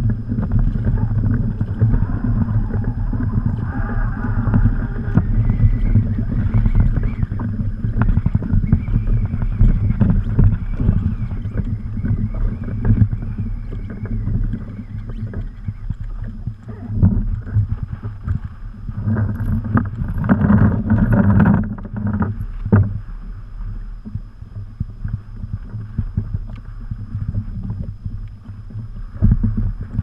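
Wind buffeting the microphone and choppy water slapping a kayak's hull in strong wind, a steady low rumble with a few brief knocks as anchor gear is handled on deck.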